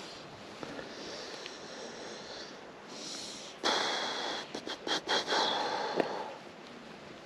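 Steady rush of the river, with a sudden loud rushing noise starting about halfway through and lasting some three seconds.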